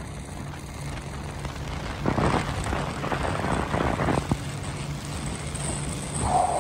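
Small boat's outboard motor running at speed, with water rushing past the hull and a few knocks of the hull on the waves about two to four seconds in.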